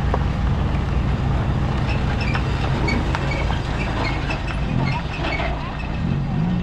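An engine running steadily, giving a low, even hum, with a few faint clicks over it.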